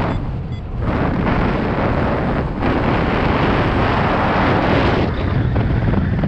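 Strong wind buffeting the microphone, a loud rushing noise that swells and eases in gusts, dipping briefly about a second in and again near two and a half seconds before building up strongest in the middle.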